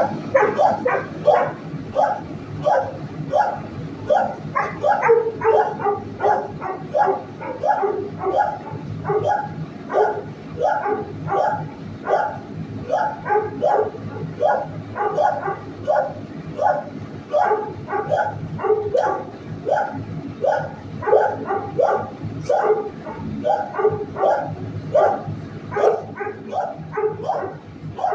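Shelter dogs barking without let-up, about two barks a second, several pitches overlapping.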